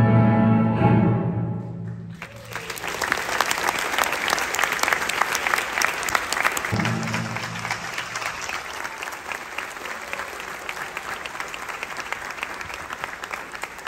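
Ballet music ends about two seconds in, and a theatre audience breaks into sustained applause at the end of the performance.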